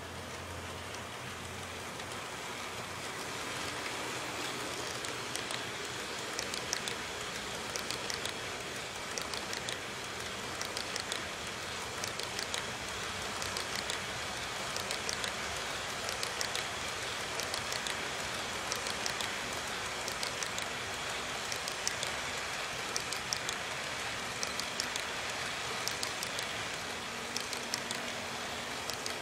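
HO scale model coal train rolling past close by: a steady hiss of small metal wheels on the track with a scatter of sharp clicks from the wheels on the rails. It grows louder about four seconds in.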